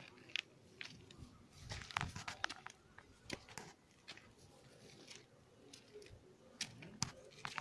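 Irregular rustling with scattered sharp crackles and clicks from movement close to the phone's microphone, some ticks quick together, others a second or more apart.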